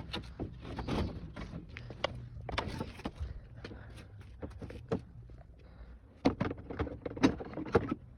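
Scattered knocks, clicks and rustles of objects being handled, at an irregular pace, with several sharper knocks near the end, over a low steady hum.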